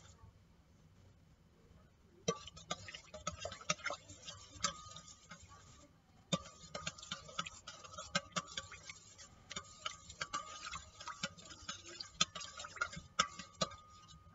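A metal spoon stirring yeast into sugar water in a stainless steel bowl: rapid clinks and scrapes against the bowl, with a faint steady ring underneath. It starts about two seconds in, pauses briefly around six seconds, then goes on until near the end.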